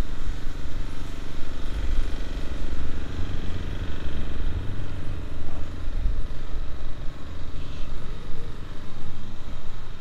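Car engine running steadily, over a deep uneven rumble.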